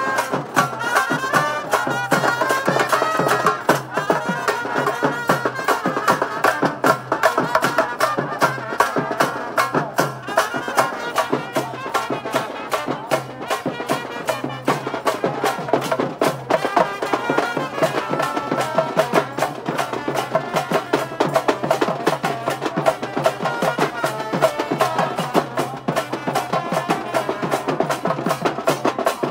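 Live kawadi brass band: trumpet and trombone playing a melody over loud, rapid drumming on double-headed side drums beaten with sticks.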